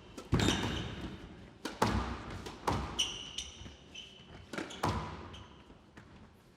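Squash rally: the ball struck by rackets and smacking off the court walls, sharp echoing hits about once a second, with a brief squeak of court shoes about three seconds in.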